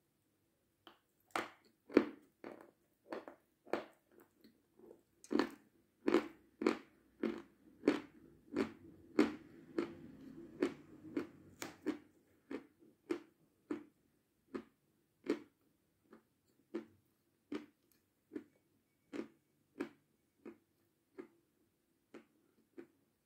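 Dry, crisp crunching of a chunk of Seversky edible chalk being bitten and chewed close to the microphone, a crunch about every three-quarters of a second, loudest in the first half and growing fainter as the piece breaks down.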